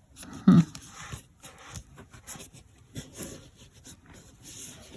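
Paper rustling and being handled as cut pieces are positioned on a journal page, with soft scattered taps and rubs and one short, louder low sound about half a second in.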